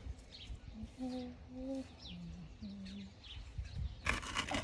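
Small birds chirping faintly, with a run of short low notes that change pitch from one to the next, then a rustling noise near the end.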